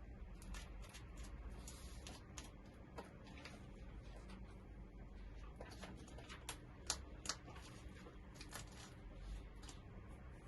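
Slime being squeezed and stretched by hand, making faint, scattered small clicks and pops.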